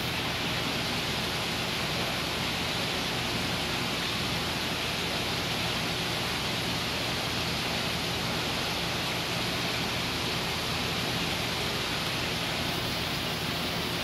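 Steady rushing of circulating water with a low hum beneath it, from running saltwater aquarium pumps and filtration.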